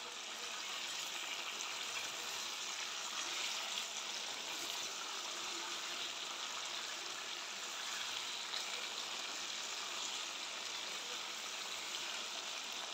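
Round potato slices shallow-frying in hot oil in a pan, a steady even sizzle.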